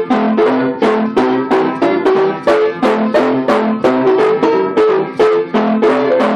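A lively piano tune played in brisk, evenly paced notes, each struck sharply and dying away quickly.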